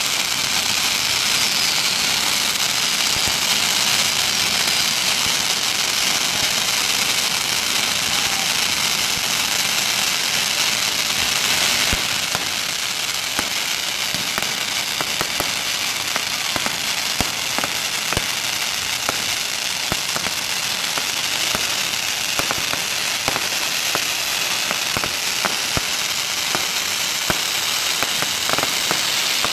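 Many long strings of red firecrackers going off together: a dense, continuous crackling rattle of countless small bangs. About twelve seconds in it thins a little, and separate louder bangs stand out from the crackle.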